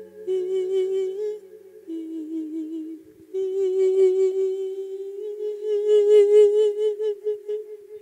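Electronic keyboard playing a slow instrumental melody of long, wavering held notes that step up and down in pitch, in a flute-like voice, as the interlude between the monk's sung verses of an Isan thet lae sermon.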